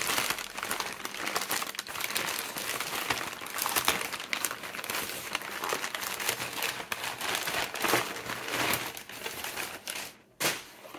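Crumpled packing paper crinkling and rustling continuously as hands dig through it and pull it out. A single thump comes near the end, after which it goes quieter.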